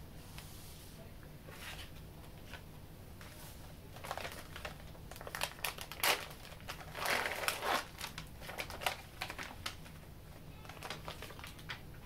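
Packaging of a sterile cap change kit crinkling and crackling as gloved hands unfold and open it: a string of crackles, loudest in the middle.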